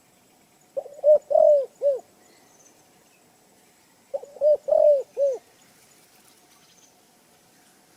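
Dove cooing: two phrases of about four low notes each, the first about a second in and the second about three seconds later. Faint high chirps from other birds sound in the background.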